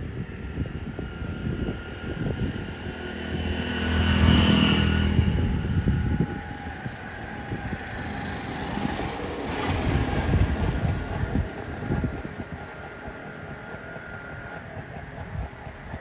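Road traffic passing close by. One vehicle's engine swells to its loudest about four to five seconds in and fades, and a second, quieter pass follows around ten seconds in, over a steady low rumble.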